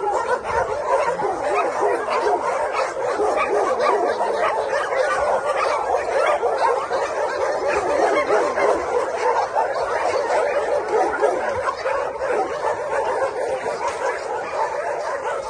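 A large group of kennelled dogs barking all at once in a dense, unbroken chorus, many voices overlapping without a pause.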